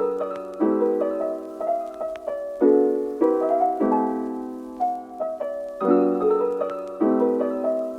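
Background piano music: sustained chords struck afresh about once a second under a gentle melody.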